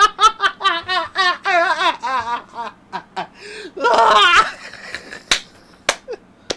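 A man laughing hard in rapid repeated ha-ha pulses that trail off after about three seconds, with one more loud burst of laughter about four seconds in. Three sharp clicks follow near the end.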